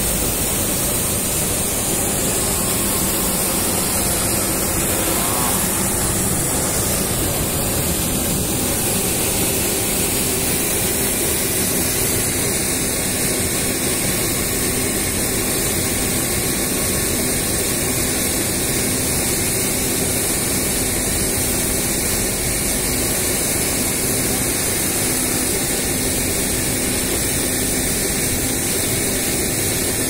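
Steady, loud rushing noise of an airport apron, unchanging throughout, with faint steady hum lines in it; the cargo door being swung shut makes no distinct thud or latch click above it.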